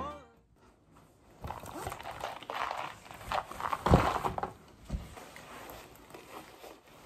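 Rustling and scraping of a knit bag and a puffer jacket being handled close to the microphone, with a dull knock about four seconds in as the bag is pushed against the camera.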